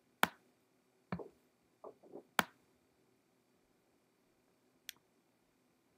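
Computer mouse clicking: a few separate, sharp clicks, most in the first two and a half seconds and one more near the end, over a quiet room.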